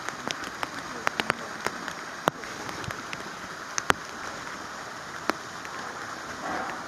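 Steady light rain hissing, with irregular sharp taps of single drops hitting a nearby hard surface, a few each second.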